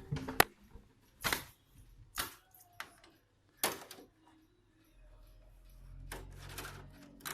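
Sharp plastic clicks and knocks, about five in the first four seconds, as the split air conditioner's plastic dust filters are handled and fitted back into the indoor unit. A faint low rumble comes in about five seconds in.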